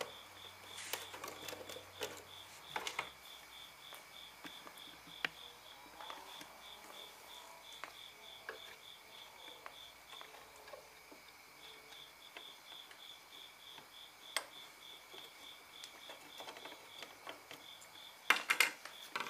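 Scattered light clicks and knocks of hand tools working the rusty hardware off an old wooden toolbox, with a louder clatter near the end. Behind it an insect chirps in a fast, even pulse, pausing briefly twice.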